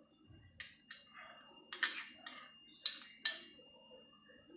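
Kitchen utensils and containers being handled, about seven sharp clinks and knocks over some three seconds, the loudest near the end.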